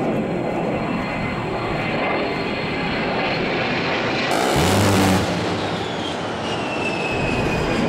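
A-10 Thunderbolt II jet flying low past, its TF34 turbofans whining, with a burst of fire from its GAU-8 30 mm rotary cannon, lasting under a second, a little past halfway. After the burst the engine whine falls steadily in pitch as the jet goes by.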